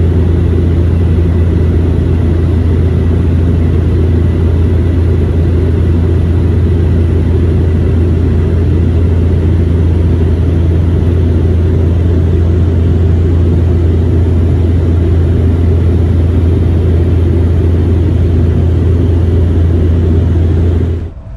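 Aircraft engine drone heard from inside the passenger cabin in flight: a loud, steady low hum with a constant pitch and an even rushing noise over it. It cuts off abruptly near the end.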